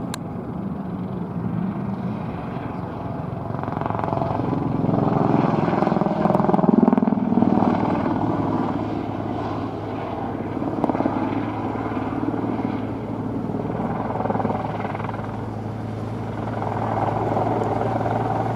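Airbus EC120B helicopter flying aerobatic manoeuvres: the thrum of its main rotor and single turboshaft engine, swelling louder about six to seven seconds in and again near the end as it passes.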